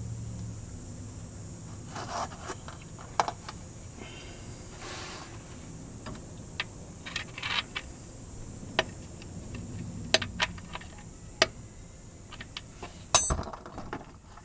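Irregular light metallic taps and clinks as the new shift shaft seal is driven into the TH350 transmission case with the seal installer tool, with a louder knock near the end.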